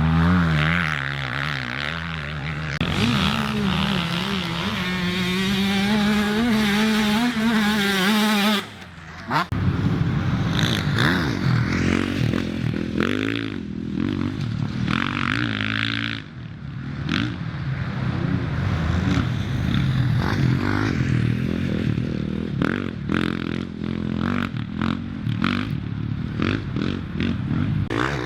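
Off-road racing motorcycles revving and accelerating, with engine notes rising and falling. One climbs steadily for several seconds and then cuts off suddenly about nine seconds in, after which more bikes rev and change pitch.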